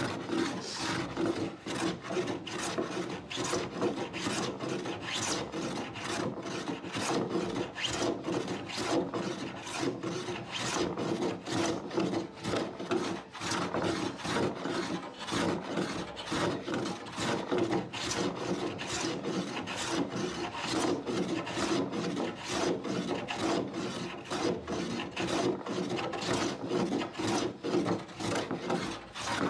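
Quick back-and-forth strokes rubbing by hand across a wooden door surface, about two to three a second, keeping up a steady rhythm throughout.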